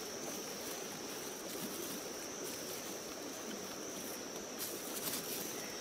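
Insects droning in one thin, steady high tone over an even background hiss of outdoor ambience.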